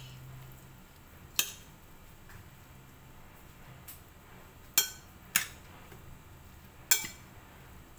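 Metal spoon clinking against a ceramic salad bowl while tossing kale salad: four sharp, separate clinks at uneven intervals, with a fainter tap between the first two.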